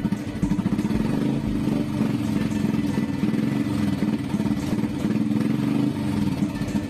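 Royal Enfield Bullet 350 single-cylinder engine running steadily just after a hand-kick start, its exhaust giving a fast, even thump. The owner says its contact-breaker points are out of adjustment and the slow-running screw has been set up a little.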